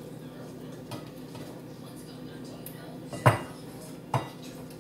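A spatula knocking against a glass bowl of mashed vegetable mixture a few times, with two sharp strikes a little after three seconds and just after four seconds, the first the loudest, over a faint steady hum.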